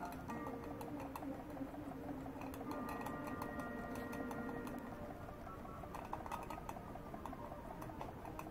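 Live-steam model of Henri Giffard's 1852 airship steam engine (10 mm bore by 20 mm stroke), fed by an alcohol-fired boiler, running and spinning a large three-bladed airscrew: a rapid, steady mechanical ticking.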